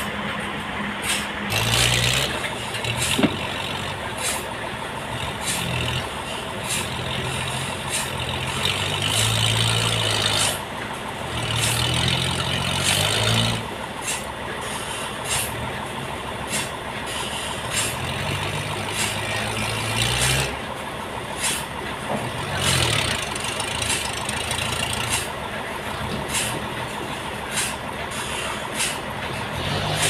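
Sawmill running as it cuts a large trembesi (rain tree) log. Its low motor note rises and falls with the load, over a steady hiss and a run of sharp ticks.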